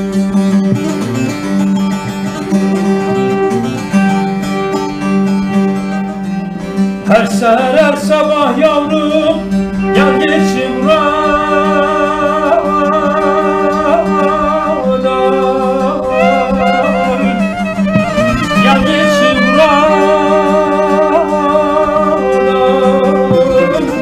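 Live Turkish folk music: a bağlama (saz) plays with an end-blown flute holding long notes. About seven seconds in, a man's voice enters singing an uzun hava, a free-rhythm folk song, in long, ornamented, wavering lines over the bağlama.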